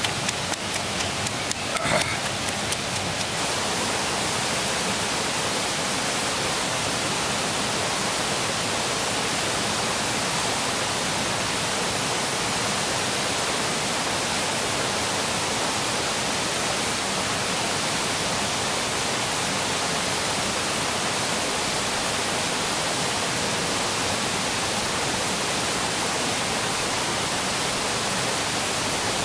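Steady rushing of river water over rocks. During the first few seconds, quick knocks of a wooden pestle pounding chillies in a wooden mortar sound over it.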